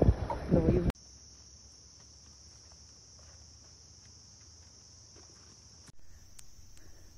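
Crickets or other night insects trilling in a steady high chorus, after a loud burst of voices and wind noise that cuts off abruptly about a second in.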